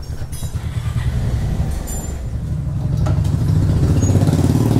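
Motorcycle engine running at idle, a steady low pulsing that grows louder toward the end.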